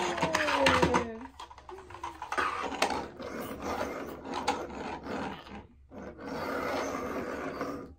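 Plastic toy cars rolled and pushed across a wooden tabletop, their wheels rubbing and scraping in irregular strokes. A short voice sliding down in pitch is heard in the first second.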